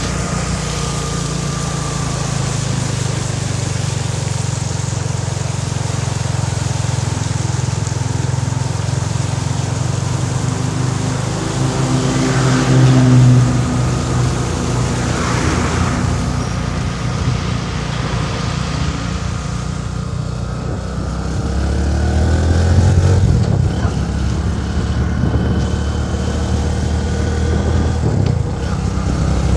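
Bajaj V15's single-cylinder engine running as the motorcycle is ridden through a flooded road. The engine note swells twice, about a third of the way in and again past the middle, as it is throttled up.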